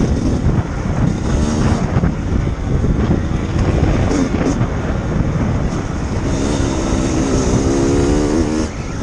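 Kawasaki KX85 two-stroke dirt bike engine being ridden hard, its revs rising and falling repeatedly, with wind buffeting the onboard microphone.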